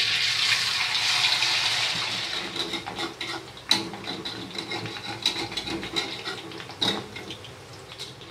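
Egg noodles sizzling in hot oil in a metal wok: a loud hiss that slowly dies down, broken by clicks and scrapes of a metal spatula against the wok, two of them sharper than the rest.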